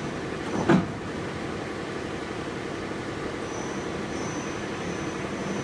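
Johnford VCL1250 CNC vertical boring mill's faceplate table turning slowly, its 30/35 HP spindle drive and four-speed gearbox running with a steady mechanical hum. A single sharp knock sounds under a second in, and a faint high whine comes in about halfway through.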